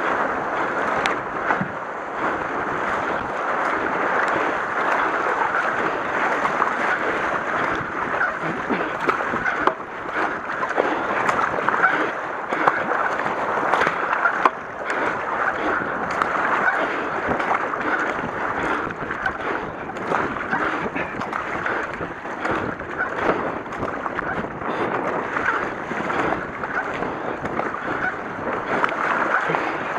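Kayak paddle strokes splashing and river water rushing around a K1 racing kayak, a steady watery noise with irregular sharper splashes.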